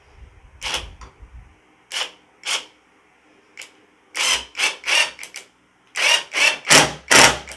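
Mensela brushless impact driver on its slowest speed driving a 2-inch screw into a wood block: a low motor hum at first, then the impact mechanism hammering in short spells. The spells come closer together and grow louder over the last few seconds as the screw seats.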